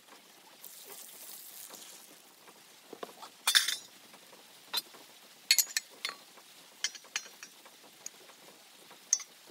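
Metal pan and utensils being handled, clinking and knocking: one sharp ringing clink about three and a half seconds in is the loudest, followed by scattered lighter clicks.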